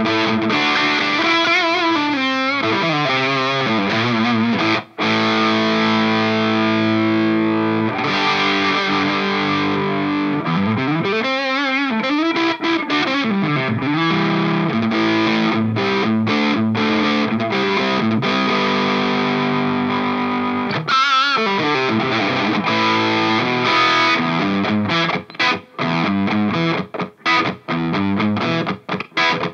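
Electric guitar played through a Nux Plexi Crunch overdrive pedal, a Marshall-style crunch, into a Kelt Mostro Redhead amp and 2x12 cabinet. The crunchy distorted chords ring out, with string bends in a lead phrase partway through and a run of short, choppy, abruptly stopped chords near the end.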